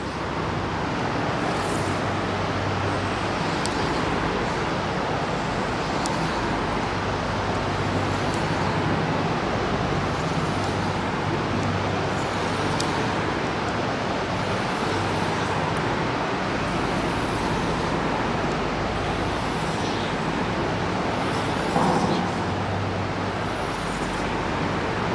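A steady rushing noise with a low hum underneath, holding at an even level throughout.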